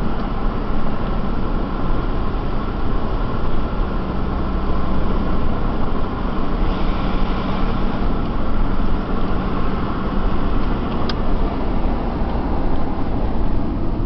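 Steady road and engine rumble inside a moving vehicle's cabin, with a low hum under it. A single brief click about eleven seconds in.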